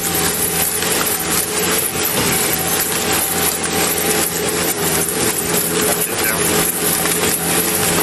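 Skid-steer loader engine running steadily, with a constant hum, overlaid by rapid thumps and rustling from a body-worn camera jolting with each running footstep.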